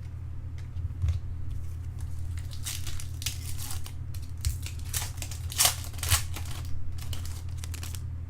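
Foil trading-card pack wrappers crinkling and tearing as packs are opened and cards handled, in irregular bursts of rustling, with a steady electrical hum underneath.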